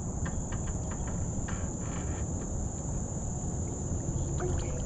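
Steady high-pitched trilling of insects such as crickets, with a low wind rumble on the microphone and a few faint clicks.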